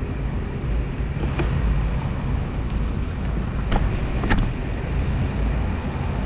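Steady rumble of wind on the camera microphone and tyre noise from a mountain bike rolling over asphalt, with two short knocks about four seconds in.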